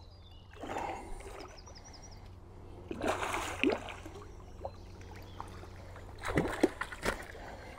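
A hooked fish splashing at the surface as it is played in to the landing net, in short splashy bursts about a second in, around three seconds in and again near the end. A small bird chirps faintly.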